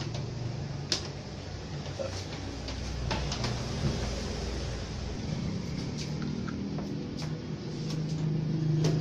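Scattered light clicks and knocks of a CRT television set and its cables being handled on a workbench, over a steady low hum.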